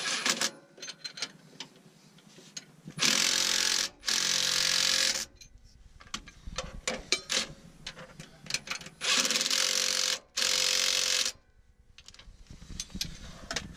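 Cordless impact wrench hammering nuts tight on bolts that clamp steel fish plates around a snapped leaf spring. It runs in four bursts of about a second each, two close together a few seconds in and two more near two-thirds of the way through, with small metal clicks and clinks of the spanner and bolts in between.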